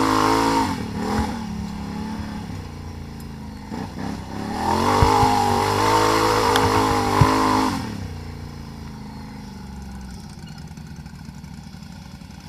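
ATV engine revving in bursts: a rev at the start, a short blip about four seconds in, then a longer rev held for about three seconds with a couple of sharp knocks in it, before dropping back to a low idle that fades away.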